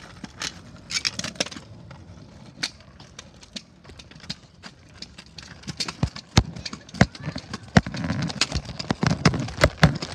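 Irregular clicks and knocks with a low rumble from a handheld camera being carried and swung around, growing louder and busier about six seconds in.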